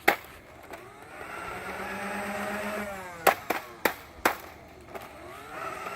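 Nerf Rival Khaos blaster's battery-powered flywheel motors spinning up, holding a steady whine, then winding down. Four sharp clicks come as the whine fades.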